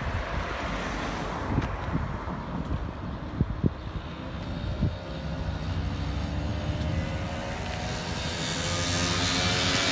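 A car passes with tyre noise, while wind buffets the microphone. Then a distant engine drone rises slowly in pitch and grows steadily louder toward the end.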